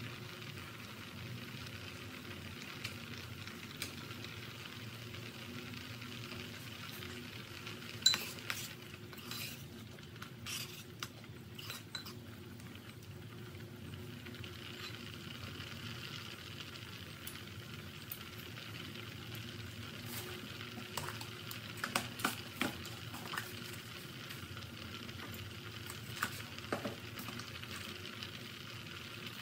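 Fish amok sauce bubbling steadily at a boil in a pot, with a metal ladle stirring it and clinking against the pot now and then. The loudest clink comes about a third of the way in, and small clusters of knocks follow later.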